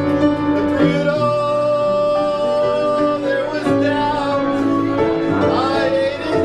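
A man singing into a microphone over instrumental backing music, with long held notes.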